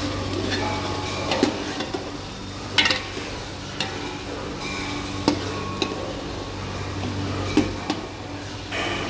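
Chicken pieces frying and sizzling in an aluminium pot while a metal ladle stirs them, knocking sharply against the pot about five times.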